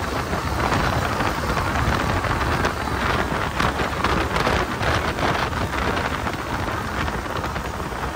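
Center-console boat running at speed: wind rushing and gusting over the microphone and water rushing along the hull, a steady loud noise with stronger gusts in the middle.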